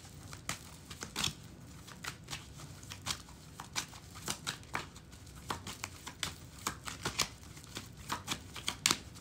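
A deck of tarot cards being shuffled by hand: a run of short, irregular card flicks and slaps, a few a second.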